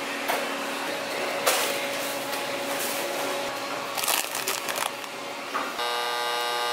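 Crinkling of a chip bag pulled from a wire rack about four seconds in, over steady restaurant room noise, then a soda-fountain dispenser buzzing steadily as it pours water into a paper cup near the end.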